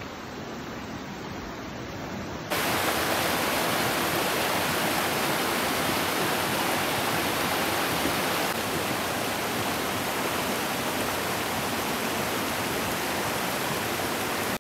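Creek water rushing steadily over rocks. It jumps louder about two and a half seconds in.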